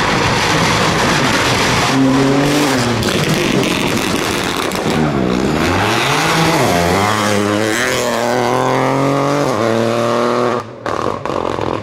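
Peugeot 208 rally car engine working through a hairpin. The revs swoop down and back up about five seconds in, then climb in repeated steps as it accelerates away through the gears, with a short sharp cut near the end.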